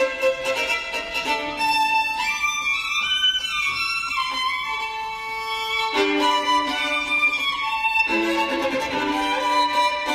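Violin playing a melody of held notes, with slides between notes in the middle.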